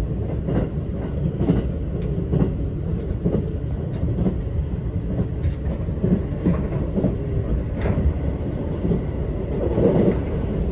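JR 651-series electric train's wheels clacking over rail joints, heard from inside the passenger car over a steady low running rumble. The clacks repeat roughly once a second.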